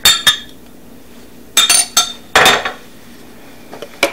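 A utensil clinks against a glass measuring cup in quick, ringing strikes: two at the start and a few more about a second and a half in. A louder clatter follows about two and a half seconds in, with a couple of faint ticks near the end.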